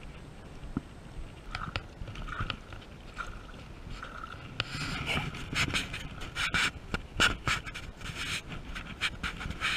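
Handling noise from a camera rubbing against clothing: scratchy rubbing with sharp knocks, denser and louder from about halfway through.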